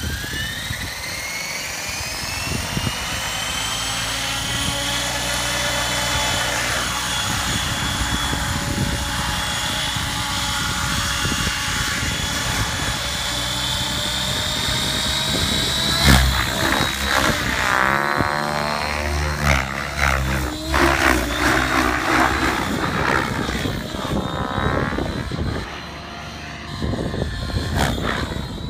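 Align T-Rex 700 Pro DFC radio-controlled helicopter spooling up with a rising whine, then running steadily on the ground. About 16 s in there is one sharp knock. After that the helicopter flies, its whine rising and falling in pitch as it sweeps back and forth.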